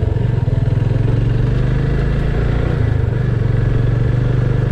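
Motorcycle engine running steadily while the bike rides along a road, heard from on the bike, with a brief dip in the engine note a little past halfway.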